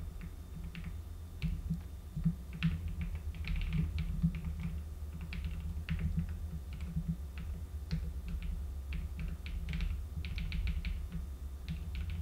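Typing on a computer keyboard: irregular key clicks, a few at first, then quick runs with short pauses, over a low steady hum.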